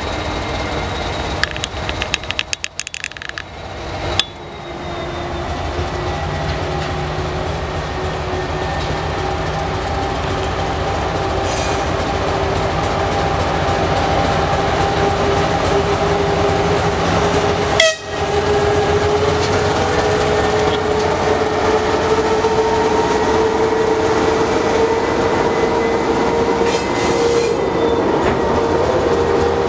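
TGM6A diesel-hydraulic shunting locomotive's diesel engine running steadily as it approaches and passes, its hum rising slowly in pitch. One short, sharp, loud sound comes about two-thirds of the way through, and the wagons roll by on the rails near the end.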